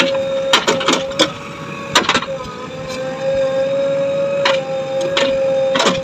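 JCB 3DX backhoe loader working its digging arm: a steady high hydraulic whine over the diesel engine, broken by several sharp metallic knocks from the arm and bucket as it scoops soil.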